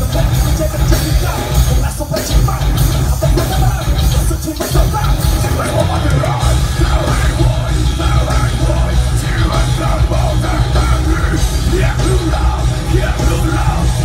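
Rock band playing live through a PA system: distorted electric guitars and drums with a singer's voice over them and strong bass, loud and unbroken.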